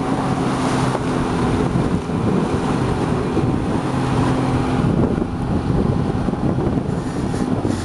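Outboard motor of an open panga running at a steady speed, a constant low hum, with wind buffeting the microphone.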